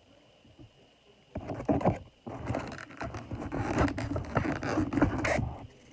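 Takeout food container scraping, rustling and knocking on the table as food is scooped from it, starting about a second in with many sharp clicks.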